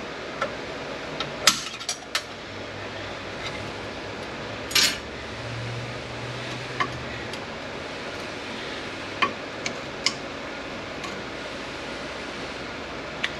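Scattered sharp metallic clinks and taps of hand tools against the steel gears and shaft of a manual transmission, a dozen or so spread irregularly through the stretch. A steady background hum runs underneath.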